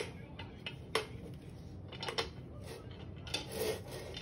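Wooden beads clacking on the wire bead maze of a wooden activity cube as a baby monkey pushes them about: irregular sharp clacks, roughly one a second, with a small cluster near the end.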